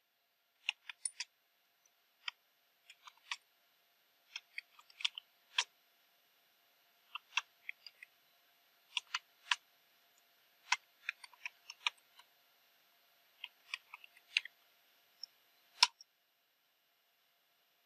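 Computer keyboard typing: single keystrokes and short runs of key clicks at an uneven pace, with one harder keystroke near the end as the Enter key opens the file.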